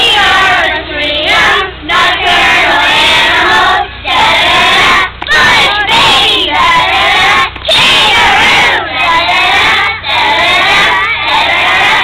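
A group of young children singing loudly in unison from song sheets, in short phrases with brief breaks between them.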